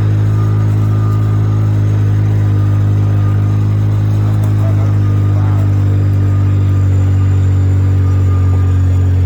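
ATV engine running at a steady, even speed under way, its pitch holding nearly constant.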